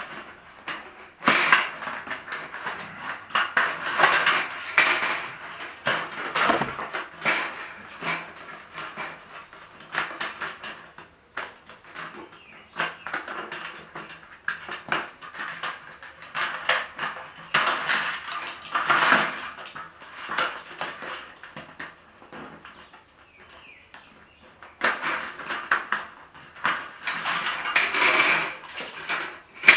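Clattering and scraping of a sheet-metal fluorescent light housing as the old wiring is pulled out of its channel by hand, with irregular clicks and rattles and a quieter lull about two thirds of the way through.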